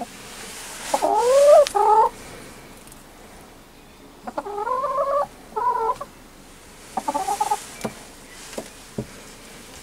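Domestic hen calling in three short bouts, the first call rising in pitch. A few short sharp knocks follow near the end.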